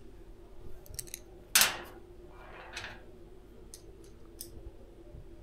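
Handling sounds on a Kumtel electric oven's casing as its control knobs are fitted back on: a few light clicks, one sharp knock about a second and a half in, a short rubbing sound, then a few more faint clicks.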